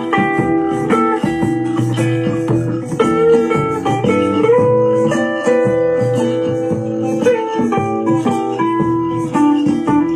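Guitar-led music played through an Eggel Terra 3 Mini portable Bluetooth speaker as a sound test: a run of plucked notes with little deep bass.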